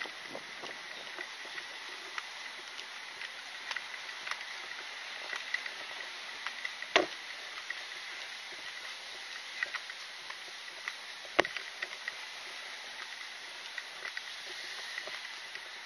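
Street ambience picked up while walking: a steady hiss with scattered light clicks and taps, two sharper knocks about seven and eleven seconds in, and a faint steady high tone.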